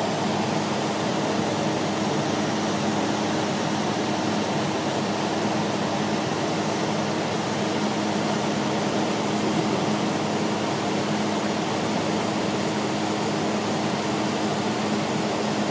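Airliner cabin noise in flight: a steady rushing hiss of engines and airflow with a low, even hum underneath, unchanging throughout.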